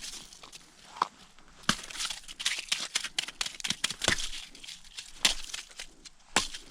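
Irregular crunching and sharp knocks of handling on ice and slush as a freshly caught whitefish is landed through the ice hole.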